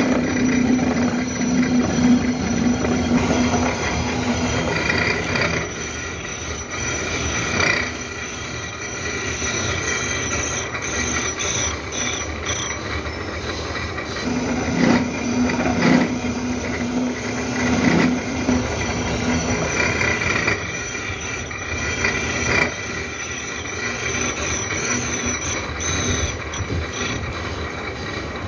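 Milling machine's toothed disc cutter slotting a metal workpiece, cutting the teeth of a dog clutch: steady machine running and cutting noise. A low hum comes and goes, and there are a few sharp knocks.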